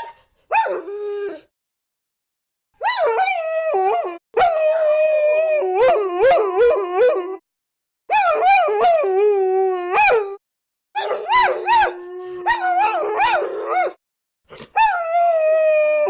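Several dogs howling together, long wavering howls at different pitches overlapping, with a few short yips. The howls come in six bouts broken by short complete silences.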